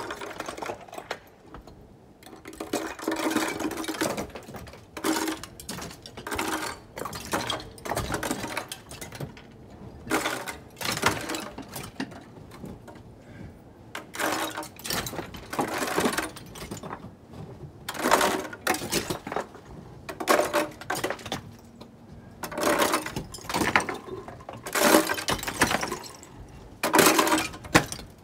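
Icicles on a roof edge being knocked down with a snow shovel: a clatter of knocks and cracking, breaking ice every second or two.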